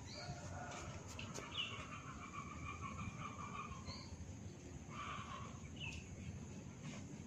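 Birds chirping in the background: short high chirps every couple of seconds and a longer wavering call in the first half, over steady low background noise.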